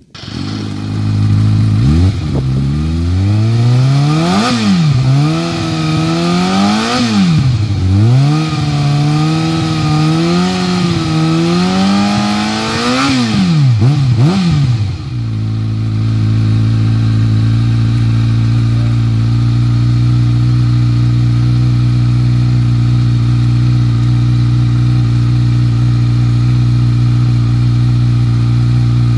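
Kawasaki Ninja ZX-6R's 636 cc inline-four, breathing through an Akrapovic exhaust, comes to life right at the start. It is then revved in a series of throttle blips that rise and fall in pitch for about fifteen seconds, and settles into a steady idle for the rest.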